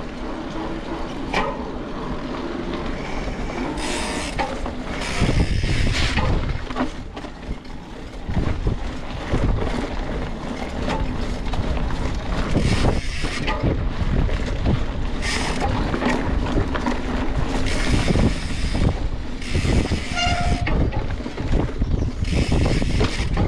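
Mountain bike ridden along a dirt singletrack: wind rumbling on the microphone, with the bike rattling and clattering irregularly over the bumps.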